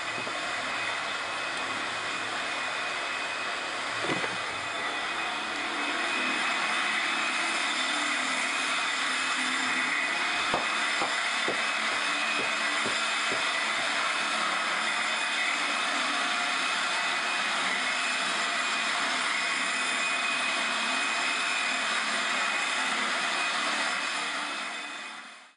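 Concrete-removal power equipment running steadily, a constant machine noise with a high whine, with a few small knocks about halfway through.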